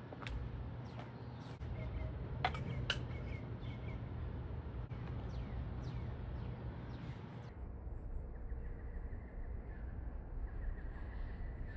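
Outdoor ambience: birds chirping in short falling calls over a steady low rumble, with a couple of sharp clicks about two and a half to three seconds in.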